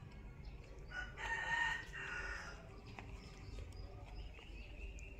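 A rooster crows once, about a second in, a pitched call of about a second and a half that breaks briefly in the middle.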